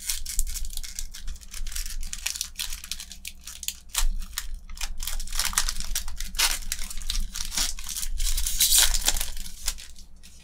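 Foil wrapper of a Magic: The Gathering booster pack being torn open and crinkled by hand: a busy run of crackling rips and rustles that stops near the end.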